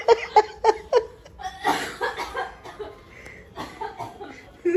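Laughter: a quick run of about four short chuckles in the first second, then softer, breathy laughing.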